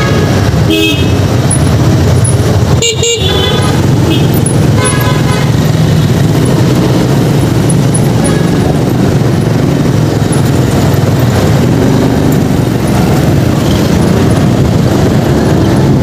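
Honda motor scooter's engine running with wind noise while riding slowly in dense city traffic, and short horn toots in the first few seconds, the loudest about three seconds in.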